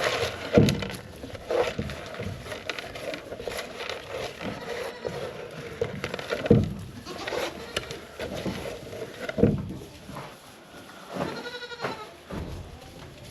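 Livestock bleating several times, with a few loud knocks; near the end one wavering bleat stands out clearly.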